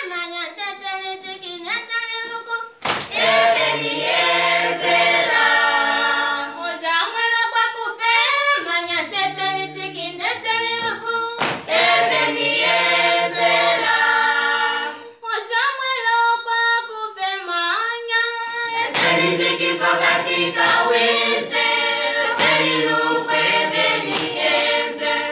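A choir singing a cappella, several voices in harmony, with short breaks between phrases.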